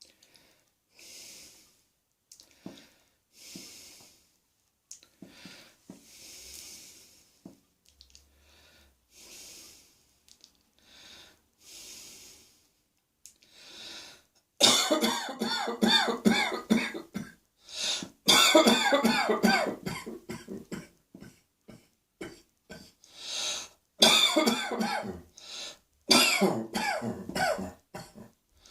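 A person in a coughing fit. Soft breaths and small coughs come first, then from about halfway in a long run of loud, harsh hacking coughs follows in rapid clusters.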